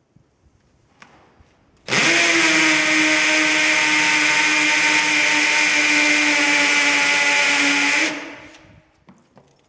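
Electric drill boring into concrete for an anchor bolt: it starts up about two seconds in, runs at a steady pitch for about six seconds, then is released and winds down. The drill is too light for concrete and barely cuts.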